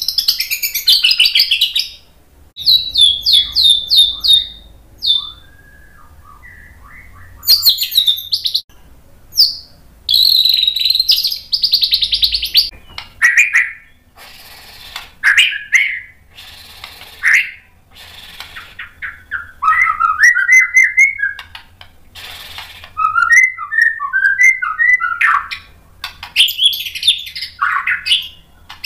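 Male white-rumped shama (murai batu) singing in about a dozen separate phrases of rapid trills, slurred whistles and chattering notes. Each phrase lasts a second or two, with short pauses between.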